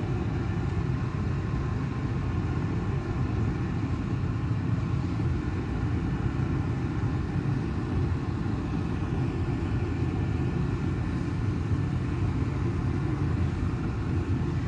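A steady low mechanical rumble with a faint hum over it, unchanging and without distinct knocks or clicks.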